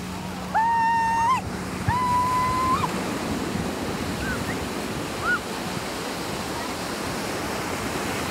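Ocean surf breaking and washing up the beach as a steady rush, with wind on the microphone. Near the start, two long, high-pitched shouts ring out, each held about a second, followed by a couple of short high cries.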